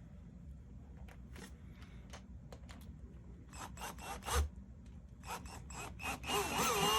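Scattered clicks and rubbing as tools and the wooden plaque are handled, with a knock about four and a half seconds in. Near the end a power drill starts whirring, its pitch wavering as it drives a screw into the plaque.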